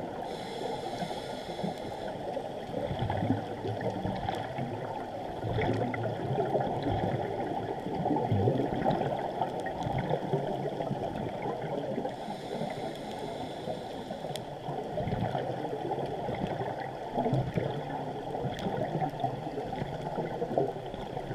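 Muffled underwater noise through a GoPro's waterproof housing: a scuba diver's regulator breathing, with exhaled bubbles gurgling in uneven swells and two short hisses about twelve seconds apart.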